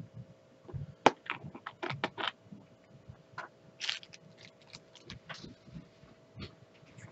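Small plastic diamond-painting drill bottles and their lids clicking and tapping against a clear plastic storage case, in quick irregular clicks, with a brief rattle just before four seconds in.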